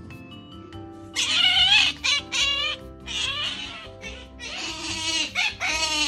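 Asian small-clawed otter giving loud, high squealing calls with a wavering pitch, in four or five bouts starting about a second in: begging for more food.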